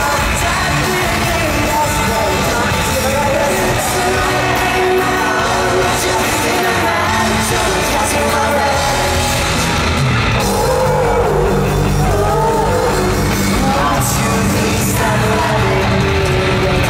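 Rock band playing live, heard from among the audience: a sung lead vocal over electric guitars, bass guitar and drums.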